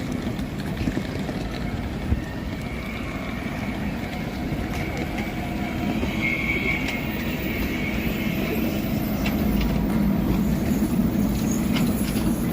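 Steady running noise of a moving public-transport vehicle, a low rumble with a faint high whine through the middle, growing louder in the last few seconds.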